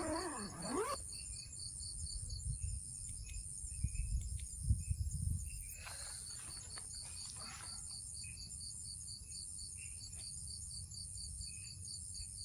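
Night chorus of crickets and other insects: a steady high buzz with an even, rhythmic chirping a few times a second. Some low rumbles and rustles come through in the middle.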